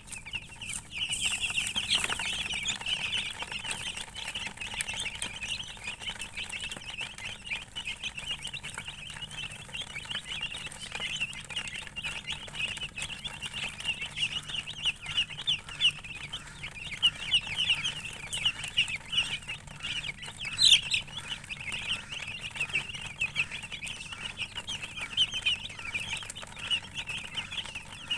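Many chicks chirping continuously in a busy, high-pitched chorus of short peeps, with one sharper, louder call about three-quarters of the way through.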